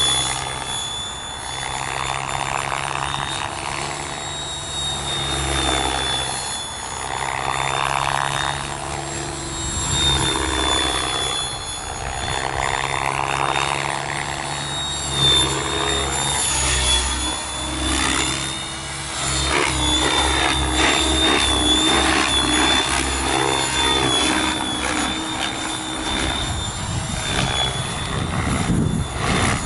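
Logo 600 SE electric radio-controlled helicopter in flight: a steady high whine from its motor and drivetrain over the whoosh of the main rotor blades. The whoosh swells and fades as it passes back and forth, with a rapid blade chop through the middle stretch.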